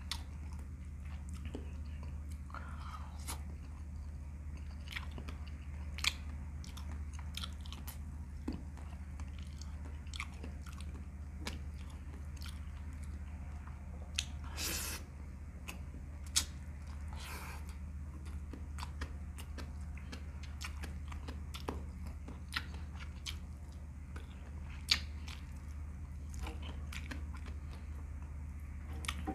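A person chewing mouthfuls of rice and saucy meat eaten by hand, close to the microphone: many small, sharp mouth clicks and smacks, a few louder than the rest, over a steady low hum.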